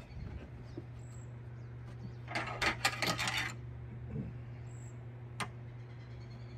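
Rooftop tent strap buckles and metal hardware clinking and rattling for about a second as the straps are worked, then a single sharp click later on, over a steady low hum.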